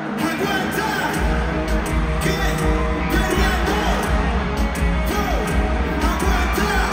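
Live reggaeton concert heard from inside the arena crowd: the song plays loud over the PA with singing and crowd yells, and a heavy bass beat kicks in about a second in.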